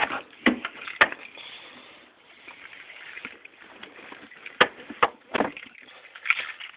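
A few sharp knocks and clicks with rustling in between, from someone settling into a car's driver seat and handling the recording camera.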